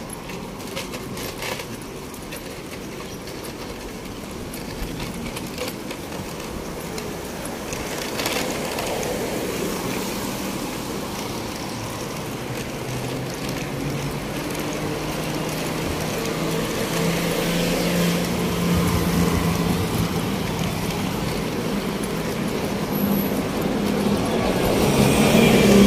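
Road traffic passing close by, with a vehicle engine's steady hum growing louder through the second half and loudest near the end as it comes near.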